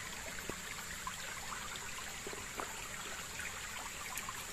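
Faint ticks of a small knife peeling a shallot by hand, over a steady outdoor hiss with a constant high whine.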